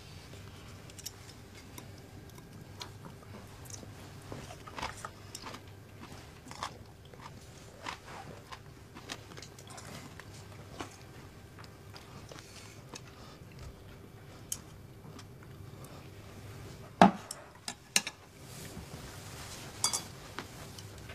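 People eating a meal: chewing and crunching, with small clinks of chopsticks against dishes. A sharper knock of tableware comes about 17 seconds in, and another a second later.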